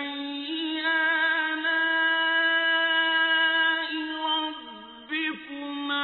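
A male Quran reciter's voice in melodic tajweed recitation, holding one long drawn-out vowel for nearly four seconds, then breaking into a short wavering melodic turn near the end.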